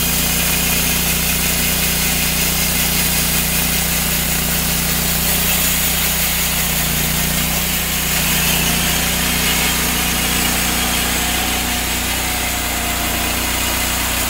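TimberKing 1600 portable band sawmill running steadily, its engine driving the band blade through a pine log.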